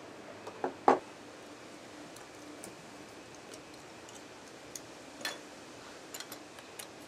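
Scattered small clicks and knocks of a plaster mold being pried open by hand around a freshly cast wax piece. The loudest is a sharp knock about a second in, with another around five seconds in and a few light ticks near the end.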